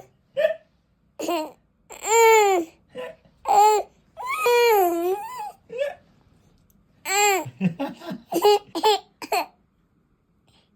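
A toddler with hiccups squealing and giggling in high-pitched bursts. About seven seconds in comes a run of short, quick catches and giggles.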